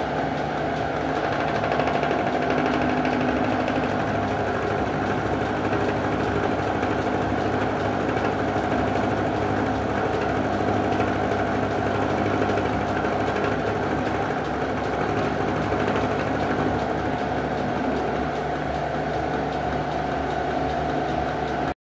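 Vertical milling machine running with an end mill cutting a curved recess into two mild-steel bars: a loud, steady machining sound that cuts off suddenly near the end.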